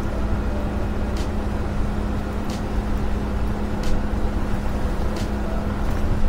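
A car driving slowly on a dirt road: a steady low rumble of engine and tyres with a constant hum, and a light tick repeating about every second and a quarter.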